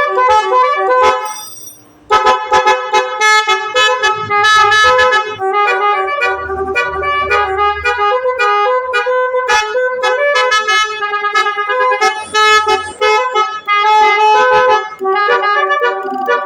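Basuri-style telolet multi-tone horn playing a fast tune of short, sharply changing notes, with a brief break about a second and a half in before the melody resumes.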